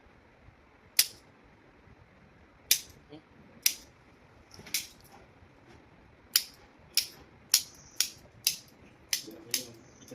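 A series of sharp clicks and cracks during a chiropractic spinal adjustment: a few spaced about a second apart, then a quicker run of about two a second in the second half.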